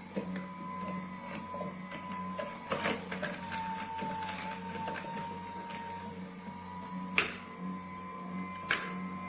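An electric juicer's motor running with a steady, slightly wavering whine over a low hum, with a few sharp clicks scattered through.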